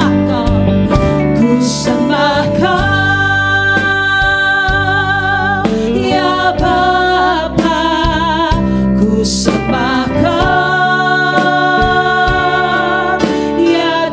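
A worship band playing a song on a Roland Fantom-S88 keyboard, electric bass, electric guitar and drums, with a woman singing long held notes.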